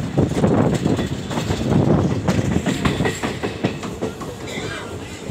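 Passenger train running at speed, heard from an open coach doorway: a loud steady rumble of the wheels with many sharp, irregular clicks as they pass over rail joints and points.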